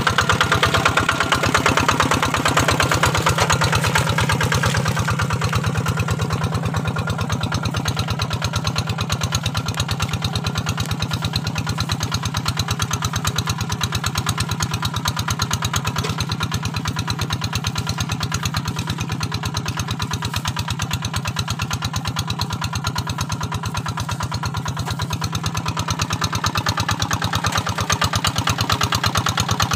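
Kubota RD 85 single-cylinder diesel engine of a two-wheel hand tractor running steadily under load with an even, rapid beat, pulling a moldboard plow through dry paddy soil.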